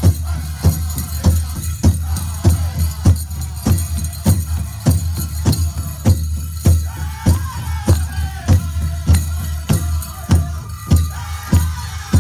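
Powwow drum and singers playing a chicken dance song: a large drum struck in a steady beat, with high-pitched singing coming in about seven seconds in, and jingling bells from the dancers' regalia.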